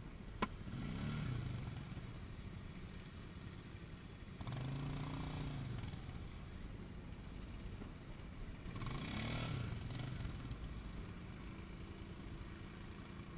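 ATV engines running, with an engine revving up and back down three times: about a second in, around five seconds in and around nine seconds in. A single sharp click comes just after the start.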